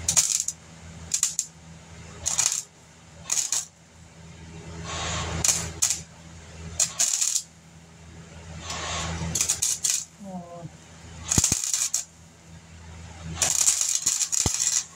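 Welder laying short stitch welds on rusted body sheet metal: about ten crackling bursts, most under half a second, the last one about a second and a half long near the end.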